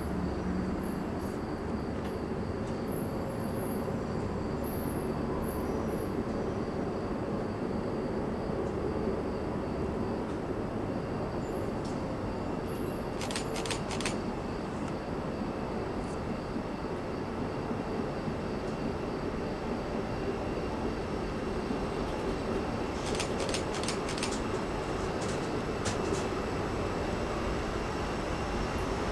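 A train rolling past on the rails with a steady, even rumble, and a few brief sharp high squeals or clicks from the wheels about halfway through and again near the end.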